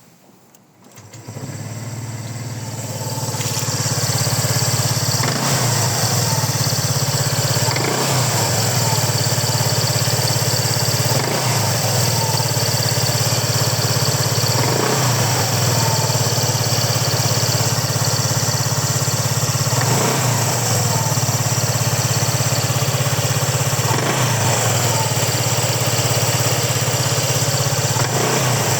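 KYMCO RTS135 scooter's single-cylinder engine starts about a second in and settles into a steady idle. A sharp click sounds every three to four seconds; this is the abnormal noise the owner complains of, which two service visits have not cured.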